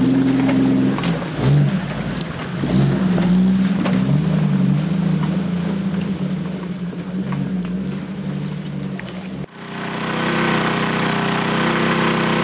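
Off-road 4x4's engine revving and labouring up and down as it drives a rough forest track, with a few sharp knocks from the trail. About nine and a half seconds in it cuts off abruptly to a steady, even engine hum.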